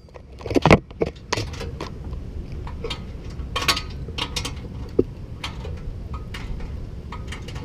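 Irregular metallic clinks and clicks of a socket wrench and fittings as bolts are fitted and tightened on a catback exhaust under the car, the loudest about a second in, over a steady low rumble.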